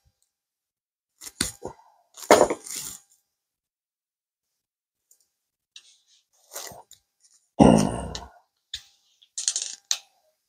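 Metal hand tools and sockets clinking and clicking in a scattered series of short knocks, with one heavier knock with a dull thud about eight seconds in.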